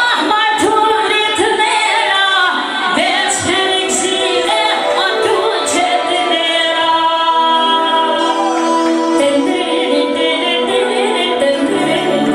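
A woman singing an Albanian song live into a microphone through a PA system, holding long notes in the second half.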